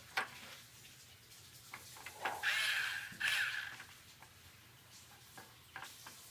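Power drill driving a screw: the motor whines in two short runs about two and three seconds in, with small clicks and handling knocks around them.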